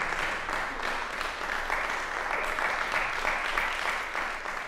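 Audience applauding, dense steady clapping that begins to die away near the end.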